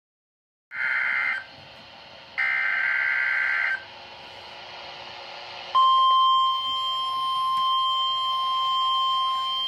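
NOAA Weather Radio emergency alert activation: two short buzzy bursts of SAME header data, then after a short pause of faint hiss the single steady warning alarm tone starts and holds.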